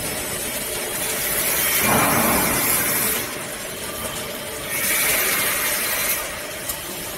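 Potato-chip frying line running: the fryer and its stainless mesh-belt discharge conveyor make a steady machine hum, and a loud hiss swells up twice, a few seconds apart.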